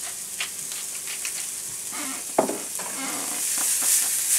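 Finely diced carrot, onion and celery sizzling as they sauté in a small frying pan, with scattered light clicks and one sharper knock about halfway through. The sizzle grows louder near the end.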